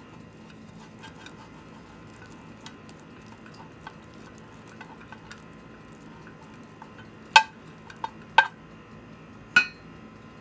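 Silicone pastry brush spreading butter inside a metal loaf pan: light clicks and scrapes of brush and fingers on the pan, then four sharper knocks against the metal in the last third, each with a short ring.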